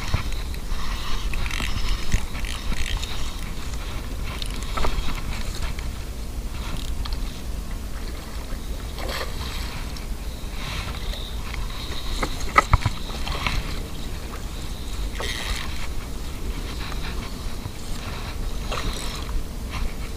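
Steady wind rumble on a body-worn action-camera microphone. A few sharp clicks and knocks from handling a baitcasting rod and reel stand out, the loudest about twelve to thirteen seconds in.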